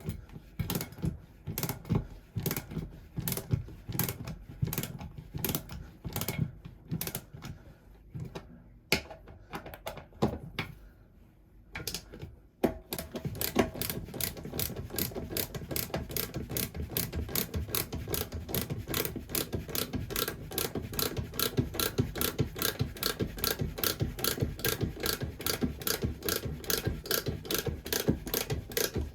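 Mechanical clicking: irregular clicks at first, a brief pause, then from about twelve seconds in a fast, even run of clicks, several a second.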